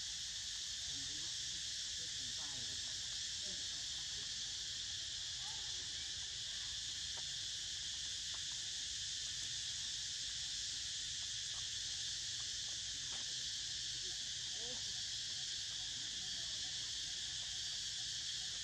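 Steady high-pitched drone of insects, unbroken and even in level throughout.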